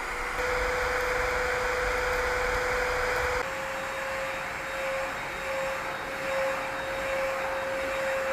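Dibea C17 cordless stick vacuum running: a steady motor whine over rushing airflow. About three seconds in, the whine steps up slightly in pitch and the rush changes character.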